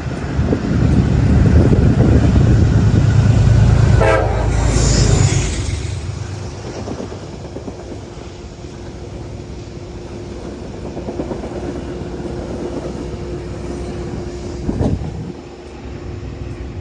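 Train passing with a loud rumble, its horn sounding briefly about four seconds in; the rumble then dies down to a quieter steady hum.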